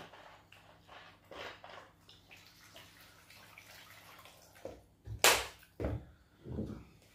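Liquid poured off soaked garri from a bowl into a plastic basin, with a loud, brief splash about five seconds in, after a few seconds of soft handling sounds.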